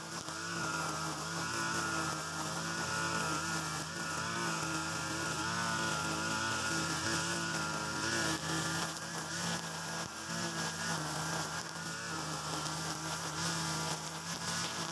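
Backpack brush cutter's Mitsubishi TU43 two-stroke engine running at high speed, spinning a nylon-line trimmer head through grass; the engine note wavers slightly as the line meets the grass.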